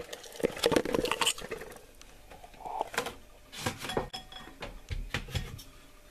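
Glass and ceramic bowls clinking and knocking together while crumbly stuffing ingredients are tipped from one into the other and handled. The sound comes as short clusters of clatter about a second in, again around three to four seconds, and once more near five seconds.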